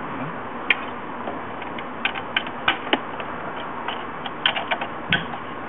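Irregular light clicks and taps of plastic dash parts and the radio being handled and fitted back into the dashboard, over a steady background hiss.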